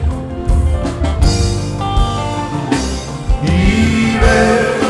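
Live church band music with drums and sustained instrumental tones, playing in the instrumental gap between sung lines of a Yoruba praise hymn.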